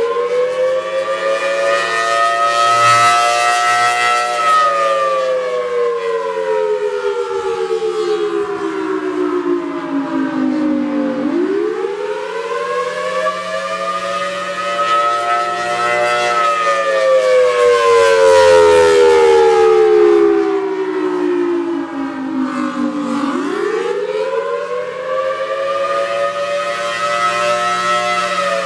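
Federal Signal Thunderbolt 1003A outdoor warning siren sounding the attack signal: a loud two-tone chord rising for about five seconds and falling for about seven, over and over. It makes about two and a half up-and-down cycles.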